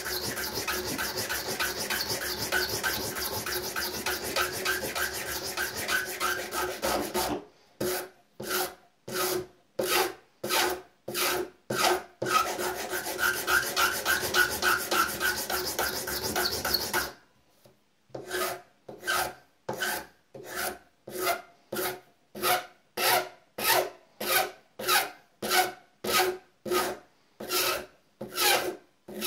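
Hand file rasping along the edge of a straight razor scale clamped in a bench vise, shaping the scale to its outline. Stretches of fast, continuous filing alternate with slower, separate strokes about two a second, with a brief pause a little past halfway.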